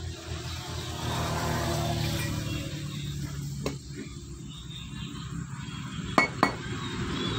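Steady low hum of a motor vehicle engine running, with a few sharp metal clinks as the parts of a disassembled starter motor are handled; the loudest two clinks come close together near the end.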